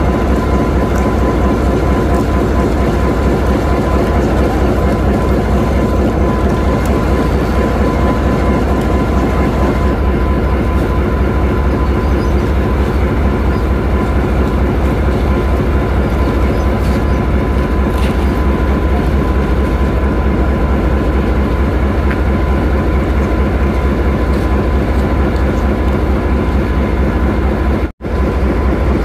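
Canadian-built diesel-electric locomotive No. 592 idling close by: a steady, deep, evenly pulsing engine throb with a steady whine above it. The sound cuts out for an instant near the end.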